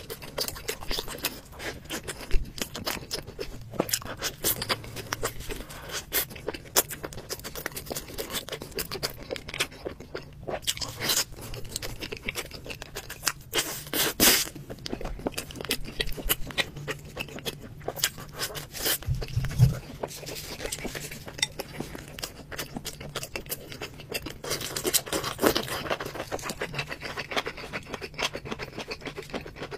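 Close-miked eating: chewing and biting into soft pastry, with many small wet mouth clicks and occasional crunches. Near the end, chopsticks scrape and tap against a ceramic bowl.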